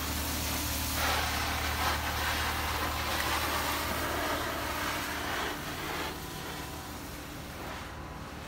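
A steady low machine hum with a hiss over it, weakening about five and a half seconds in.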